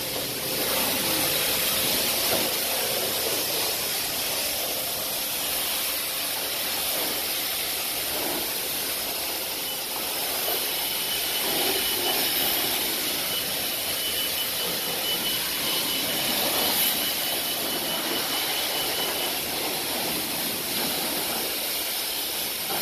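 High-pressure spray wand of a coin-operated self-service car wash blasting water onto a car's body: a steady hiss of spray, with a faint high tone through the middle stretch.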